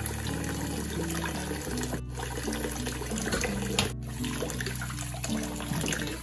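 Tap water running and splashing into a plastic basin of cherry tomatoes, with a hand swishing the tomatoes around to wash them. Background music plays underneath.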